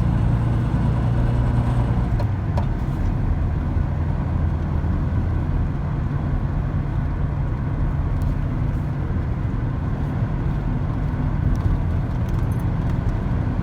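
Air-cooled VW bus engine droning steadily with road noise while driving, heard inside the cab; the engine note shifts slightly about two seconds in.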